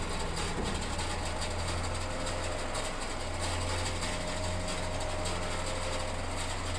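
Steady low hum of the 2020 Isuzu NRR's diesel engine idling, with the low rumble of the steel roll-off box rolling off the back of the truck on its rollers onto the pavement.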